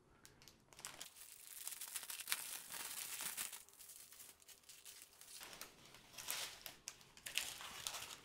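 Clear plastic wrapping and small plastic bags of diamond painting drills crinkling and rustling as they are unwrapped and handled, starting about a second in.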